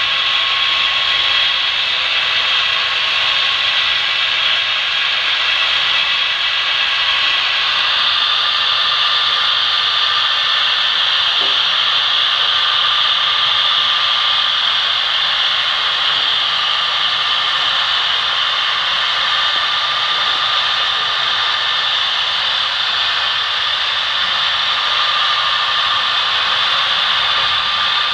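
Steady whirring hiss of a long HO-scale model coal train rolling along its track, with faint steady tones running through it.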